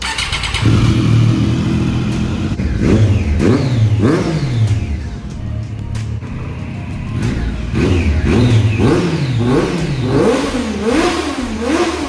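Triumph Daytona three-cylinder engine breathing through a freshly fitted Arrow slip-on exhaust: it starts about half a second in and is then revved repeatedly, the pitch rising and falling in blips that come quicker in the second half.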